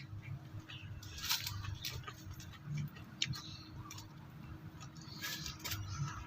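Close-up chewing of a hard piece of raw bitter gourd, with crisp crunches about a second in, three seconds in and five seconds in.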